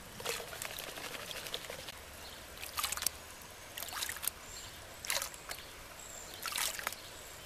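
Water sloshing and pouring off a plastic gold pan with riffles as it is shaken and tilted, washing gravel over the riffles. The water comes in several surges, about one every second, over a steady wash of water noise.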